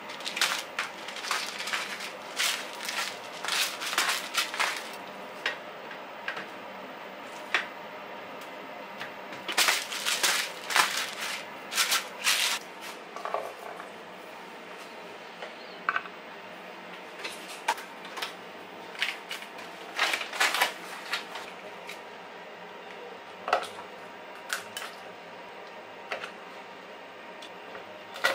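Irregular clicks, taps and knocks of kitchen food preparation: trays, garlic cloves and a knife handled on a wooden cutting board. Near the end, a sharp knock as a garlic clove is crushed under the flat of a chef's knife.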